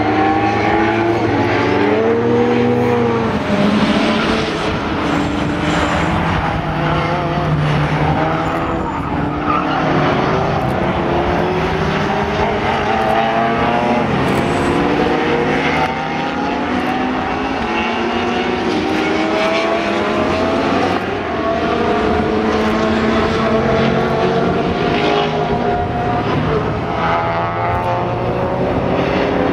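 Several saloon race car engines at racing pace, their overlapping notes rising and falling as the cars accelerate, lift off and pass along the circuit.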